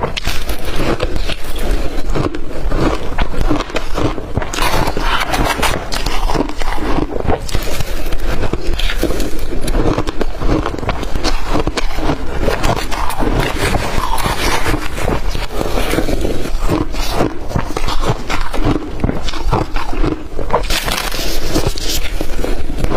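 Blender-crushed ice being bitten and chewed, with constant crunching and crackling.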